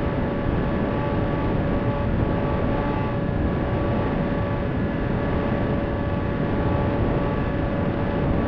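Bixler FPV plane's electric motor and propeller running at a steady drone, heard through the onboard camera, with a steady whine over a rough rumble of wind on the microphone.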